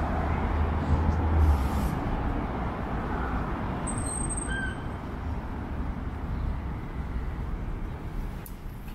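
City street ambience: a low rumble of passing traffic eases after the first couple of seconds, and a brief high squeak sounds about four to five seconds in.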